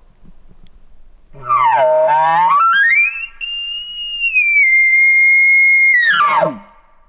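Bull elk bugling. A low, rough start about a second and a half in climbs into a long high whistle, held for about three seconds with a slight drop in pitch midway, then falls away sharply near the end.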